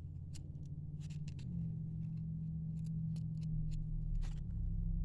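Trading cards being handled and flipped through, giving light clicks and short sliding ticks of card against card, over a steady low hum.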